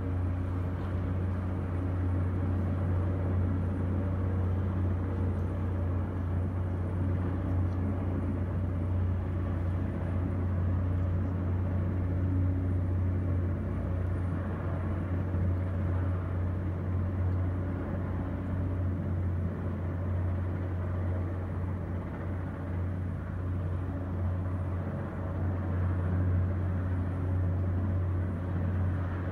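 Helicopter hovering: a steady low drone of rotor and engine, muffled through window glass.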